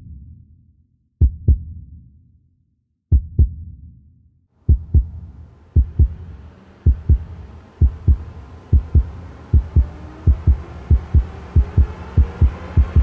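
Heartbeat sound effect: paired low thumps, slow at first and steadily speeding up. About four seconds in, a rising swell builds underneath, like a music intro winding up.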